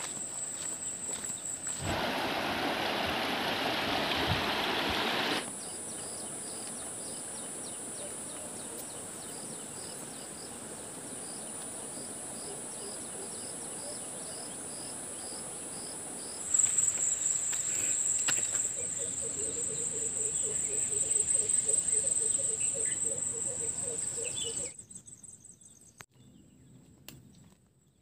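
Insects trilling in forest undergrowth: a steady, high-pitched shrill that changes character at each cut, with a few seconds of rushing noise about two seconds in and a lower pulsing call for a few seconds later on. It falls away to near quiet just before the end.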